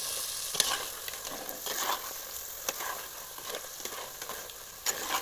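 Crab pieces and freshly added spice powders sizzling in hot oil in a pot while a slotted metal spoon stirs them, with occasional sharp clicks and scrapes of the spoon against the pot.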